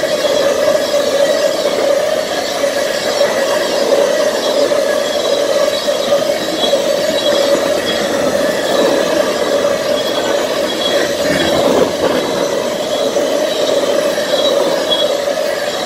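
Railroad tank cars of a freight train rolling past on steel track: a steady rumble of wheels on rail, with a thin, high wheel squeal coming and going over it.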